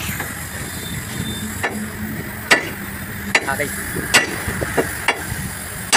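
A truck engine running steadily, with sharp metallic knocks at an even pace of about one a second that start a second and a half in. The knocks come as a steel bar is worked at the tipper body's hinge bracket.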